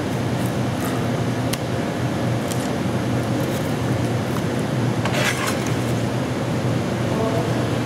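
Steady low machinery hum with an even rushing noise over it, with a couple of light knocks about one and a half seconds in and again about five seconds in.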